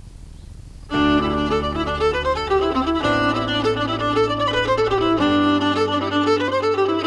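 Fiddle music starts suddenly about a second in, a quick melody over sustained low accompanying notes that change twice, after a moment of faint background noise.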